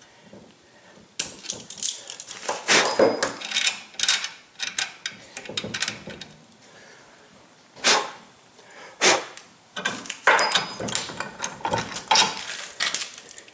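Irregular clicking, scraping and rattling of a hand tap and tap wrench being turned back out of a freshly threaded hole in a plastic thermostat housing clamped in a vise. The sound starts about a second in and comes in several bursts with short pauses.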